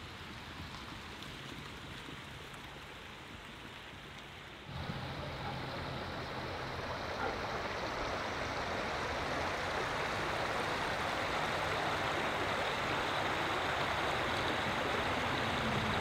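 River water rushing steadily past a snowy, icy bank. It is fainter at first, jumps markedly louder about five seconds in, and then slowly grows louder still.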